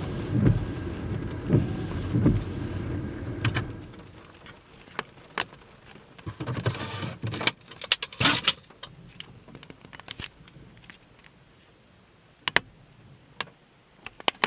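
Heavy rain drumming on a car's roof and windshield, heard from inside the car; about three and a half seconds in it eases off to scattered single drops ticking on the glass and roof, with a brief louder rush a little past the middle.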